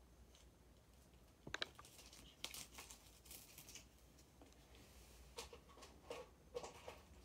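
Faint crinkling and scattered light clicks and taps from packaging and parts being handled. The crinkling comes in a stretch a few seconds in, with isolated clicks before and after it.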